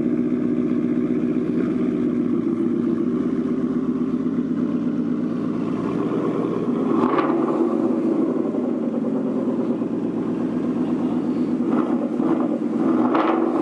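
2018 Ford Mustang GT's 5.0 L Coyote V8 idling through a newly installed AWE Touring cat-back exhaust, just after its first start-up with the new system. The note swells briefly twice, about seven seconds in and near the end.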